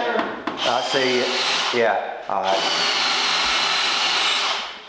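Power drill running in a steady whir from a little past two seconds in, winding down near the end. Muffled talk is heard over the tool noise in the first two seconds.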